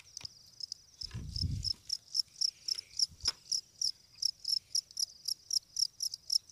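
Field cricket chirping in a steady rhythm of short, high chirps, about four a second. A soft thump about a second in and a click near the middle come from handling.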